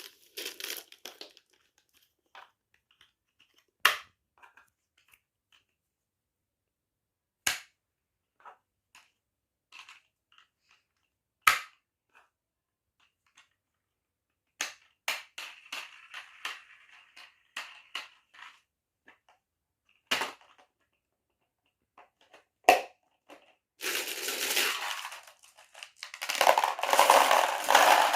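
Marbles rolling and clacking down a marble run's wooden slopes. There are single sharp clicks a few seconds apart, a stretch of quicker rattling about halfway through, then a dense, loud clatter of many marbles near the end.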